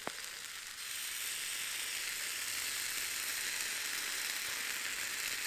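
Stir-fried vegetables sizzling in a small frying pan over campfire embers. The sizzle grows louder about a second in, as stir-fry sauce is poured into the hot pan, then holds steady.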